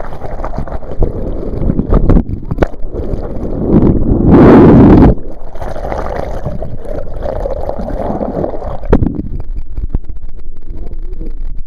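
Wind buffeting the microphone over water noise around a small boat, with a loud rush lasting about a second, about four seconds in.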